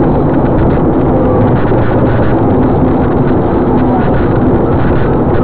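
Car driving on a wet road, heard from inside the cabin: steady engine and tyre noise with a low rumble.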